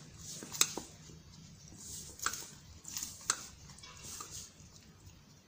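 Hands kneading moist, crumbly maida dough in a stainless steel bowl: soft squishing and rubbing, with several sharp clicks. The handling quietens near the end.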